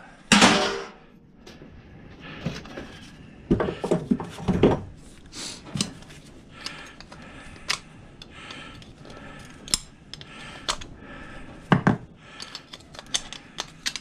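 Metal scrap parts and hand tools clattering, clinking and knocking on a metal workbench while a desk-fan motor is taken apart. There is a loud clatter just after the start, then a run of knocks a few seconds in, scattered clinks, and another sharp knock late on.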